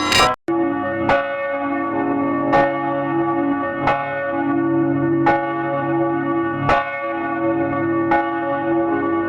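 Church bell tolling, struck about once every second and a half, each stroke ringing on under the next. A brief cut to silence comes about half a second in, and the tolling then carries on.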